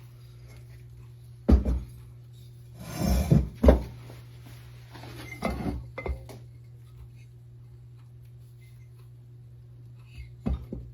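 Hard objects knocked and set down on a workbench, a handful of thunks and clatters with some rustling around the middle, over a steady low hum.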